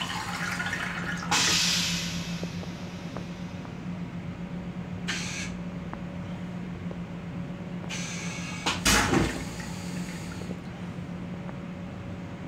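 Railcar toilet going through its flush cycle: short hissing spurts about a second in, around five seconds and near nine seconds, the last with a clunk. A steady low hum runs underneath.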